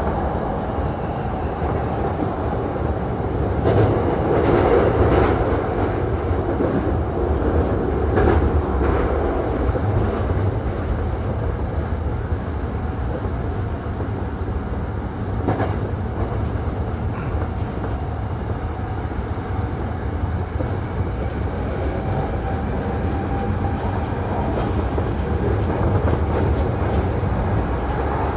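Hankyu electric train running along the line, heard from the driver's cab: a steady rumble of wheels on rail, with a few clicks from the wheels crossing rail joints.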